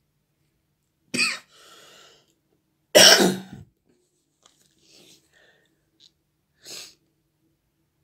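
A person coughing: a short cough about a second in, a louder, longer one about three seconds in, and a fainter one near the end.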